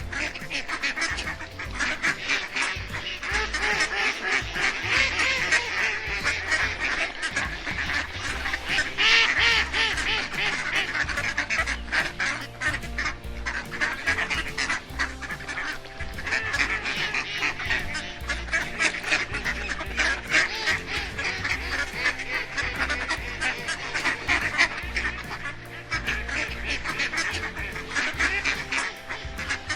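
Ducks quacking over and over, many calls overlapping in quick succession, with background music underneath.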